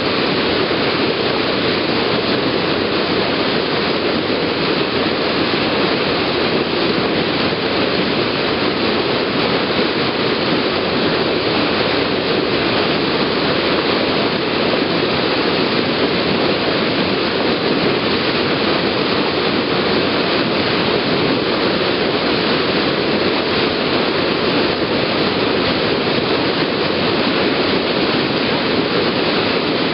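A ferry's bow wave rushing and splashing as the hull pushes through the water: a loud, steady wash with no breaks.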